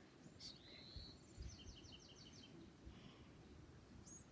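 Faint birdsong: a short high call about half a second in, then a quick run of about six notes, over quiet background noise.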